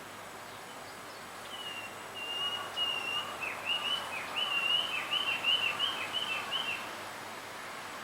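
A male blue rock thrush singing to attract a female. It gives one whistled phrase lasting about five seconds: a few level notes, then a quick run of notes that each dip in pitch, over a steady background hiss.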